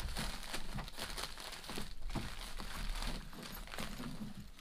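A plastic mailer bag crinkling and rustling as hands dig into it and pull out a soft fabric item. The crinkling is continuous and dies down near the end.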